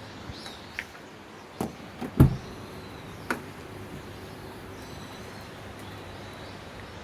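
A few light clicks and knocks and one heavier thump a little over two seconds in, over a steady background hum.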